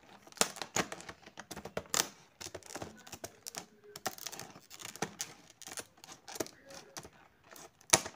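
Clear plastic blister packaging crackling and clicking as it is gripped and flexed by hand, in irregular sharp clicks, the loudest one near the end.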